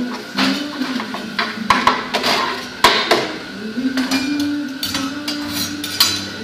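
Metal teppanyaki spatulas knocking and scraping on the steel griddle in a string of sharp, irregular clacks.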